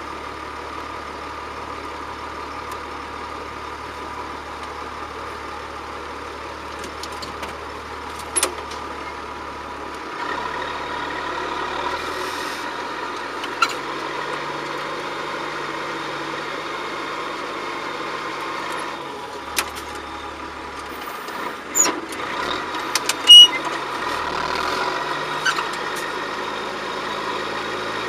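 John Deere 7710 tractor's diesel engine running steadily under work. Its note shifts about ten seconds in and again a little before twenty seconds. Several sharp clicks and knocks come in the second half, the loudest about twenty-three seconds in.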